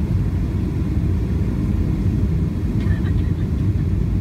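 Steady low rumble of a jet airliner cabin on final approach, engine and airflow noise heard from a window seat over the wing, with the flaps extended.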